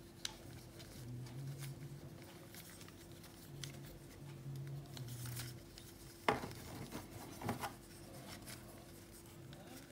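Plastic pieces of a star-shaped twisty puzzle clicking and rubbing as the hands try to turn and pull its layers apart. There are a few light clicks, and a sharp clack about six seconds in with another about a second later.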